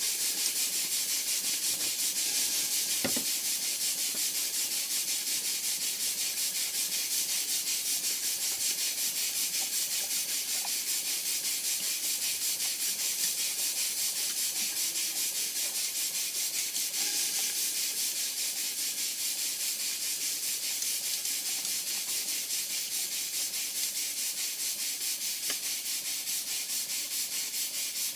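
Small horizontal model steam engine running steadily on live steam, its exhaust giving a steady hiss with a quick, even pulse.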